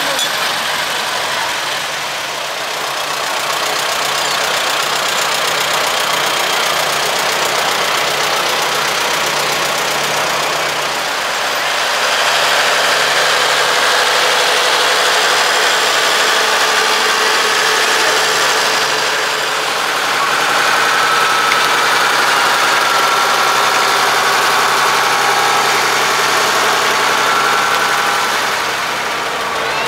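Antique farm tractor engines running at low parade speed as several tractors pass one after another, among them a Farmall Cub, an Allis-Chalmers and a John Deere. The engine sound is steady and continuous, with small swells as each tractor comes close.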